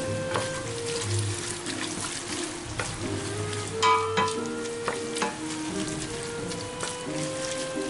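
A wooden spoon stirs and tosses oil-coated spaghetti in a stainless steel pot: wet sloshing of the pasta with scattered knocks of the spoon against the pot, the loudest about four seconds in. Soft background music plays underneath.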